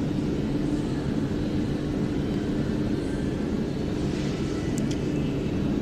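Steady background drone: an even hiss with a constant low hum, nothing starting or stopping.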